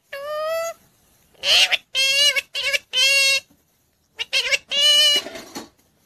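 Indian ringneck parakeet talking: several short bursts of mimicked word-like syllables in a high, squeaky, nasal voice, some sliding upward in pitch, with brief pauses between them.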